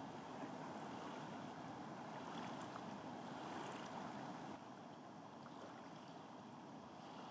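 Steady rush of water tumbling over a small waterfall into rapids, stepping down slightly in level about four and a half seconds in.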